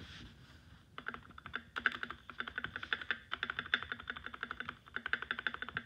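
Spacebar on a compact 60% keyboard pressed rapidly over and over: a fast run of clacks, several a second, starting about a second in.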